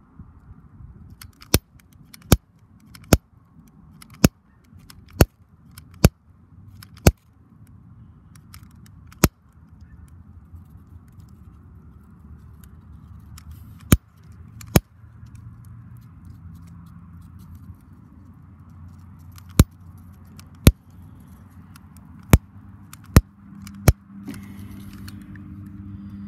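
Utility lighter's igniter clicked again and again: about fifteen sharp single clicks at uneven intervals, over a steady low rumble of wind on the microphone.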